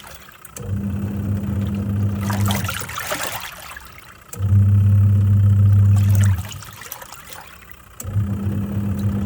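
Twin-tub washing machine's wash motor humming in spells of about two seconds, three times, with pauses between in which water sloshes and trickles as the pulsator stops and reverses during the wash cycle.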